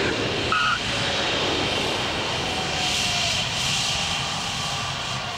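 Concorde's Olympus 593 turbojets running as the airliner rolls along the runway, a steady jet roar with a high whine that slowly fades near the end.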